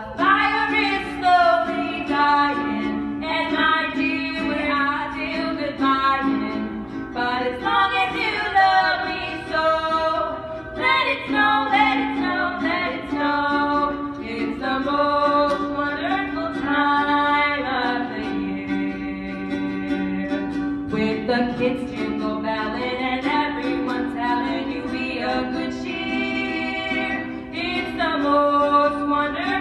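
A female singing duo performing a Christmas song medley, voices singing continuously over sustained accompanying notes.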